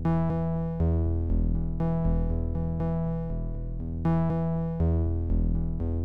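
Background music on a synthesizer or electric keyboard: sustained chords over a low bass, with new notes struck about every second.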